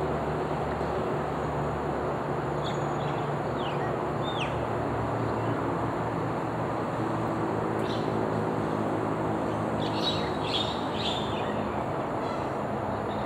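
Outdoor ambience: a steady low mechanical hum with a few short bird chirps, a quick cluster of them about ten seconds in.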